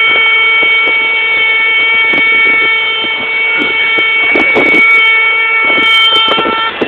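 Snake charmer's pungi (been), a double-reed gourd pipe, playing loud held reedy notes over a continuous drone.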